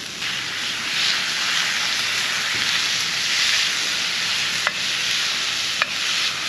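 Ground beef sizzling in a cast iron frying pan over a campfire, a steady frying hiss with two sharp pops late on.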